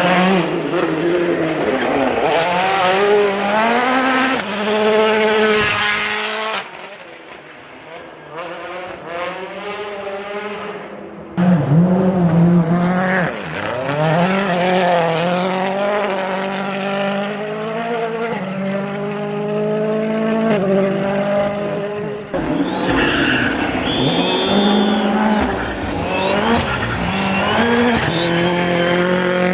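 Rally cars at full speed on a special stage, their engines revving high and dropping back with each gear change as they go by, in several short passes with abrupt cuts between them. One quieter, more distant pass comes in the middle.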